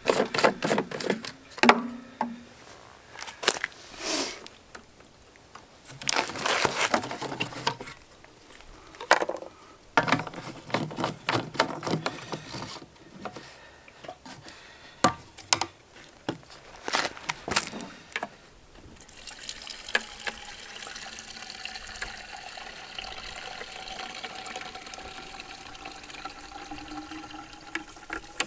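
A run of clicks and knocks from handling. Then, about two-thirds of the way in, gasoline is poured steadily into a walk-behind mower's fuel tank, with a faint tone rising slowly as the tank fills.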